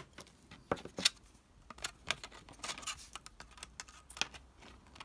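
Hands handling thin plastic card strips and a plastic tube of contact glue on a cutting mat: a run of irregular light clicks and taps.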